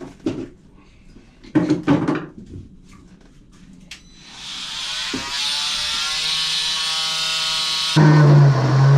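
A few handling knocks and rattles, then about four seconds in an electric power tool's motor spins up and runs with a steady whine. Near the end it turns much louder and lower as it bites into the shower drain, cutting it to length.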